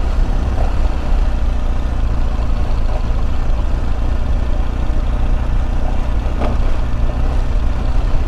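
Motorcycle engine running steadily as the bike rides a wet clay dirt road, with wind and road noise over it. A short knock about six and a half seconds in.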